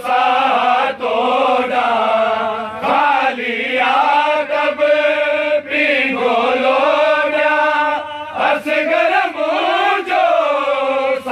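A group of voices chanting a Sindhi noha, a mourning lament, in long held melodic lines with brief breath breaks.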